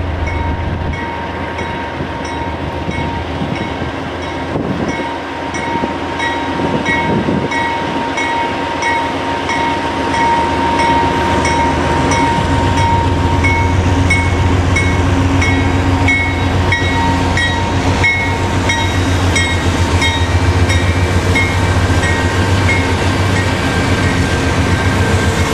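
CSX diesel freight locomotive approaching slowly, its engine rumble growing louder, with a regular ringing about twice a second (its bell) through most of the stretch.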